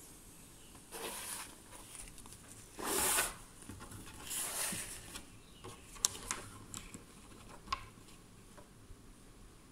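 Handling noises on a wooden tabletop as a pencil and a paper tile card are picked up and moved: a few soft swishes of sliding, then several light clicks and taps as the pencil is set down.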